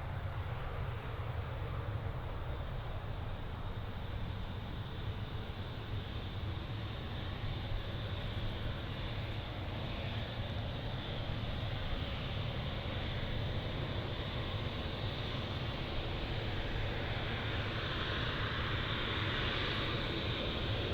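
Jet aircraft engines at a distance: a steady rumble with a hiss that grows louder over the last few seconds.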